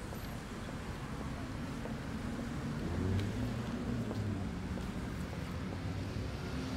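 Street traffic rumble, a steady low drone that swells slightly about three seconds in.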